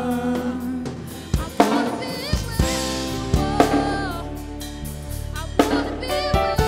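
Live worship band playing: a drum kit with scattered snare and kick hits under sustained bass and keyboard notes, and a woman singing a gospel melody.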